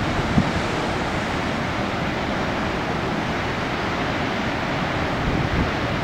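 Heavy ocean surf and wind making a steady rushing noise, with wind buffeting the microphone in a couple of low thumps.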